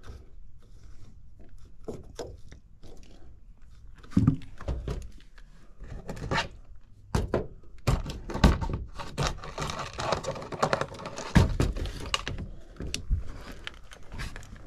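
Hand work with tools and parts: irregular knocks and clunks, the loudest about four, six and a half, eight and a half and eleven and a half seconds in, with rustling and scraping in between, densest about ten seconds in.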